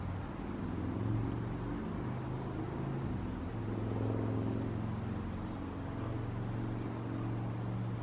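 Low engine drone of a motor vehicle, its pitch stepping up and down a few times, over a faint steady hiss.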